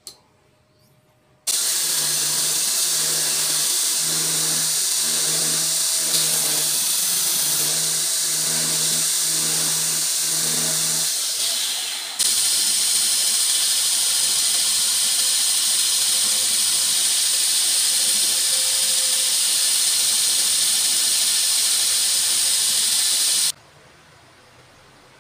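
Belt grinder running with its abrasive belt hissing steadily, in two stretches joined by a brief dip near the middle. It cuts off suddenly near the end.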